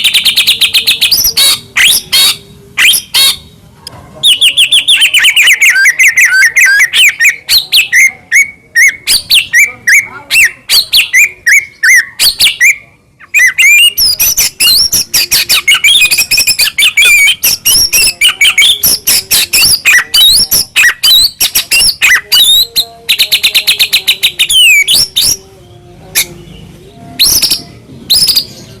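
White-rumped shama (murai batu) singing loudly and almost without a break: a fast, varied song of short whistled notes, chips and trills. From about four seconds in, a long run of quick notes steps down in pitch, and there is a brief pause about halfway through.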